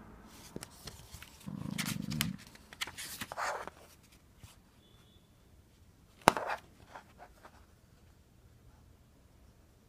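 Pages of a glossy booklet being turned and handled: rustling and paper flicks, with a short low rumble among them, then one sharp page slap a little past the middle and a few light ticks.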